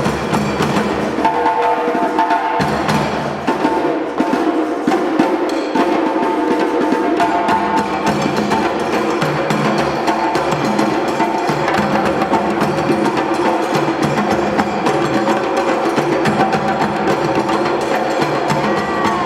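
A West African drum ensemble playing a dense, steady rhythm on hand drums, with a sharp, clicking percussion part over it.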